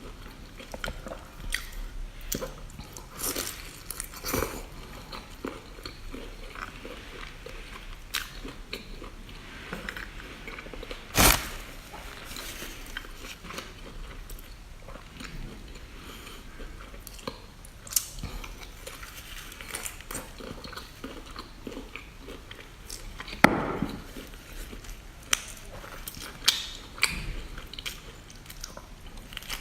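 Close-miked mukbang eating sounds: a person chewing and biting into lobster, with small crunches and clicks throughout. Two louder sharp cracks or knocks come about 11 s and 23 s in.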